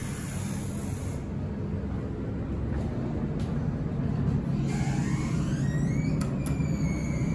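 Steady low hum inside an elevator car, with a short rising whine about five seconds in and two sharp clicks close together near the end as a floor call button is pressed.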